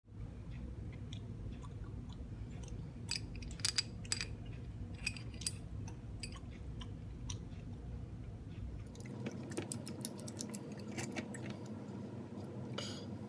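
Irregular light clicks and short scrapes over a steady low hum; the hum changes about nine seconds in.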